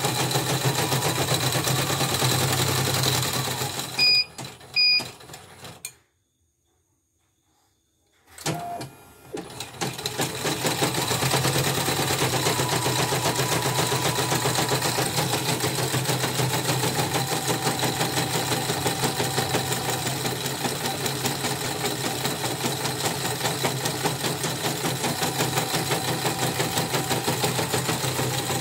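CNY portable embroidery machine stitching a test design with a steady, rapid needle rhythm. About four seconds in it gives two short beeps and stops; after a couple of seconds of silence it starts up again and runs on. After servicing, its running sound is still somewhat rough to the repairer.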